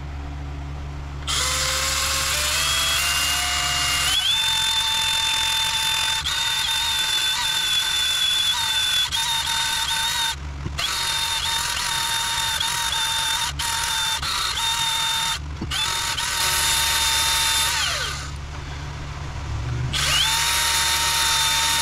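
A band file (narrow belt sander) runs in bursts against a part, with a steady high whine and hiss. It spins up about a second in and climbs in pitch, cuts out briefly twice, pauses for about two seconds near the end, then starts again.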